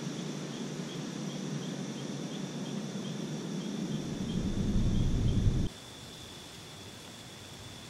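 Insects trilling steadily on one high note, with faint chirps about three a second, over a low rushing noise that grows louder about four seconds in and cuts off abruptly near six seconds. After that only the quieter steady insect trill remains.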